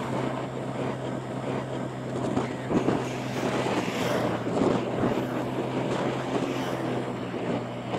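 Motorbike engine running at a steady cruising speed, a constant low hum, with wind noise on the microphone.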